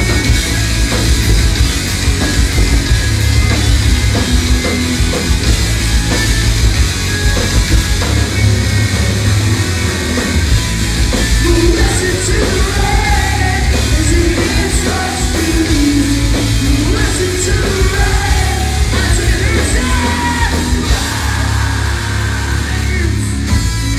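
A rock band playing live at high volume, with heavy bass and drums and electric guitars. A lead vocal sung and shouted over it comes to the fore from about eleven seconds in, heard from within the crowd in a small club.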